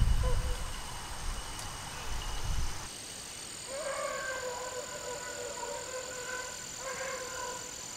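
Beagles baying in the distance, long drawn-out howls in several bursts from about four seconds in, as the pack runs a rabbit. A low rumble fills the first three seconds.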